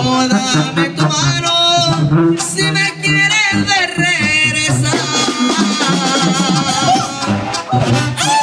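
Live Mexican banda music at full volume: brass carrying a melody over a pulsing bass line and drums.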